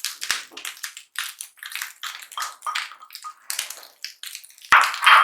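Spatula stirring and scraping rice and vegetables around a non-stick frying pan: a quick run of short, irregular scrapes, with a louder clatter near the end.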